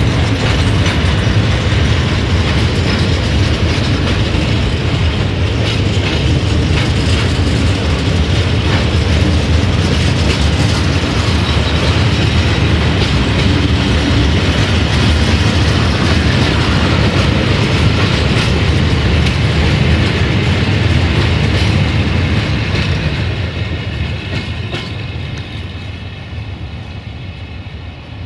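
Freight train of four-axle Fals hopper wagons rolling past close by, its wheels clattering over the rails with many short clicks. The sound dies away over the last few seconds as the end of the train passes and moves off.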